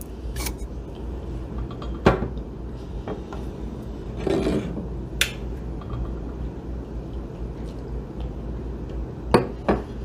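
A wood-fired ceramic teacup is set down on a slatted wooden tea tray with a single knock about two seconds in. Tea is then poured into it from a glass pitcher in a brief splash, and a few quick clinks come near the end as the pitcher is put back.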